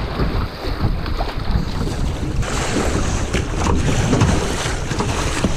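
River rapids rushing and splashing around a kayak, with the double-bladed paddle dipping into the water and wind buffeting the microphone. The hiss of the whitewater grows louder about halfway through.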